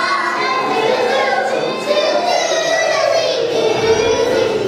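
Young children's voices singing together.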